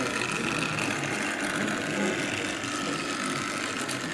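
An 009 narrow-gauge model locomotive running: its small motor and gears whirring with a steady high whine, over a rapid fine ticking of wheels on the track.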